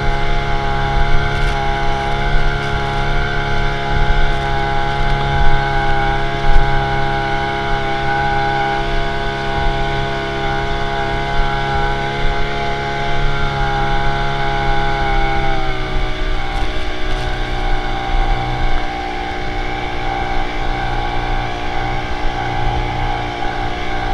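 EBKO Cimarron ski boat's engine running steadily at towing speed over a low rush of wind and water, its note dropping about two-thirds of the way through as the throttle eases off.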